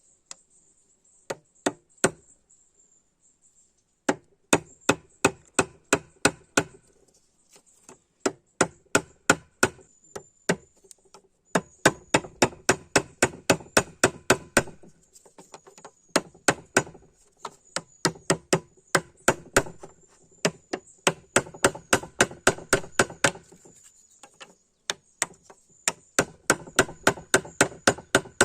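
Repeated sharp blows, about four to five a second, in runs of two to three seconds with short pauses between, each blow with a brief ringing tone.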